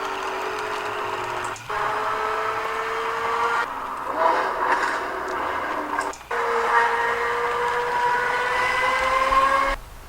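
LaFerrari-style sports-car engine sound accelerating, its pitch rising steadily in several runs. Each run breaks off abruptly and restarts, like shifts up through the gears.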